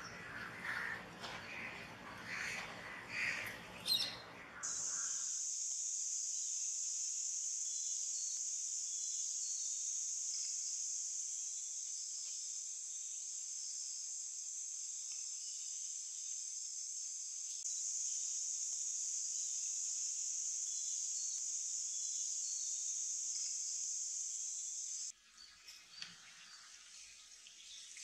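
Bird calls over outdoor background noise for the first few seconds, then a steady, high-pitched insect drone for about twenty seconds with faint chirps above it, which cuts off suddenly near the end.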